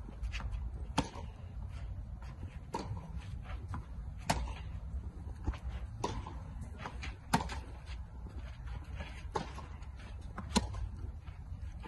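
Tennis rally on a clay court: sharp racket-on-ball hits and ball bounces, the loudest hits coming about every three seconds with softer ones between, over a low steady rumble.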